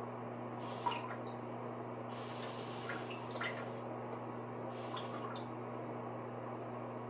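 Water dripping from a Brondell Eco Seat S101 non-electric bidet seat after it has been turned off, with three short hissing spurts among the drips over a steady low hum. It is a leak that the installer puts down to a shutoff that does not close fully.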